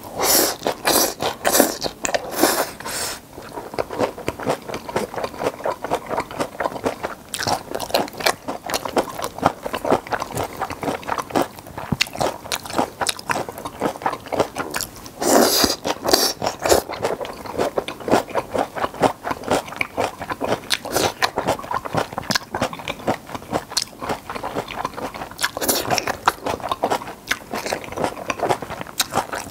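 Close-miked eating of stir-fried pepper japchae and steamed flower buns: continuous chewing with many small clicks, and louder bites in the first few seconds, about midway and near the end.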